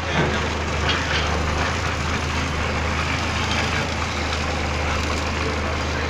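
Backhoe's diesel engine running steadily, heard from inside the operator's cab.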